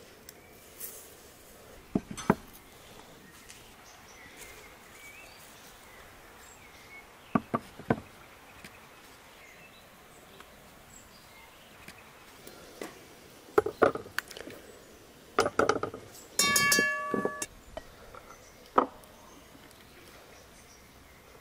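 Scattered knocks and clinks of cookware and dishes being handled, a few at a time, with one longer ringing clink about three-quarters of the way through.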